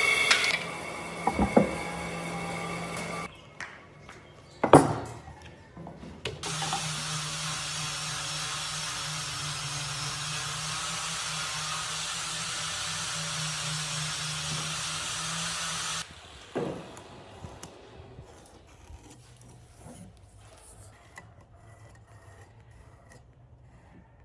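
An electric power tool working wood runs steadily, stops, and then runs again for about ten seconds before cutting off suddenly. Sharp wooden knocks come in between, and light handling knocks follow.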